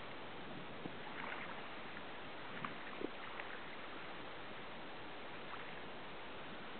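Faint, occasional splashing of a person swimming across open water between sea-ice floes, over a steady hiss.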